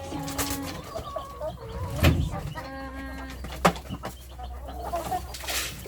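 Backyard hens clucking, with two drawn-out pitched calls, one at the start and one about two and a half seconds in. Two sharp knocks, about two seconds in and again near four seconds, are the loudest sounds.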